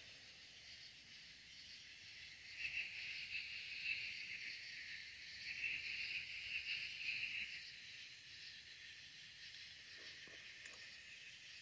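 Faint, steady chirring of night insects, swelling louder twice in the first half.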